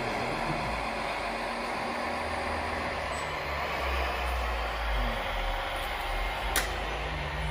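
Engine sound of a scale RC construction model running unevenly over a steady background hiss, its low rumble rising and falling, with one sharp click about six and a half seconds in.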